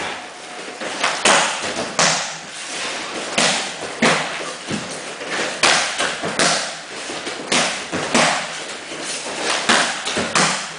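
Kicks and punches thudding into a hand-held kick shield: over a dozen sharp impacts in a quick, uneven rhythm, one or two a second.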